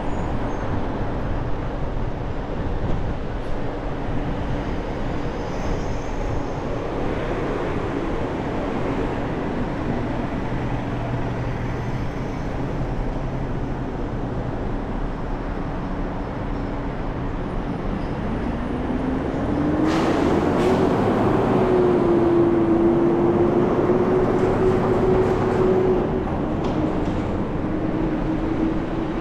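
A car driving on city streets: steady road and engine noise, with a hum that rises in pitch about two-thirds of the way through and then holds, a little louder.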